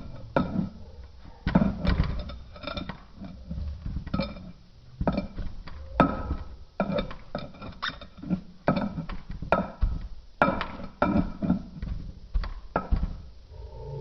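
Kinetic sand being handled, with irregular soft knocks and light clinks of tools or containers, about two a second.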